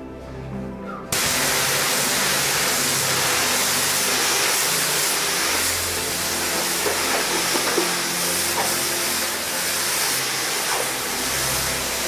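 High-pressure water spray hitting a wet tiled floor: a loud, steady hiss that cuts in suddenly about a second in.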